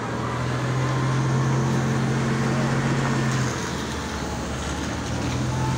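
MAZ 105 articulated city bus's diesel engine and drivetrain heard from inside the bus. A steady low hum runs over road and cabin noise, eases about three and a half seconds in, and returns briefly near the end.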